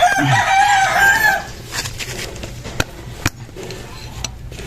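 A rooster crowing once, a loud call lasting about a second and a half. Later, two sharp clicks sound about half a second apart.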